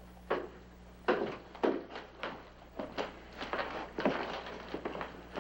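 Footsteps of several people walking, a series of uneven knocks about every half second to a second, over a steady low hum.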